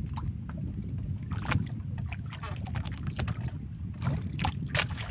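Wind buffeting the microphone over a small outrigger canoe drifting at sea, with water lapping and slapping against the hull and bamboo outriggers in short splashes, a few of them about a second and a half in and again near the end.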